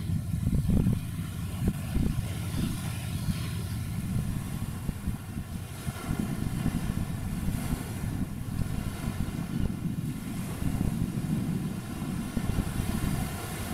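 Wind buffeting the microphone in an uneven low rumble with gusty peaks, over a steady distant engine drone from harbour vessels.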